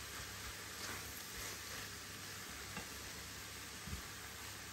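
Vegetables (onions, peppers, grated carrot and courgette) frying in a stainless-steel sauté pan with a steady, quiet sizzle. A silicone spatula stirring them adds soft scraping and a few light ticks against the pan.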